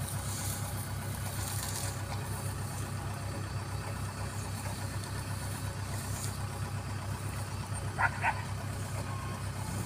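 Kubota combine harvester's diesel engine idling with a steady low throb. About eight seconds in, two short high-pitched calls sound briefly over it.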